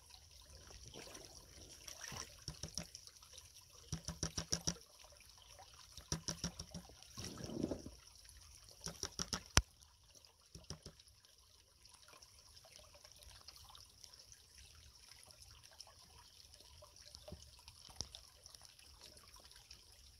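Faint water sloshing and trickling in a gold pan as creek material is washed down. A few short bursts of quick gritty rattles come in the first half, then it goes quieter.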